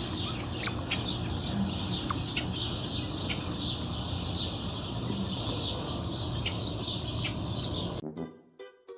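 Many birds chirping at once, a dense chorus of short high chirps over a steady low rumble, cut off suddenly about eight seconds in.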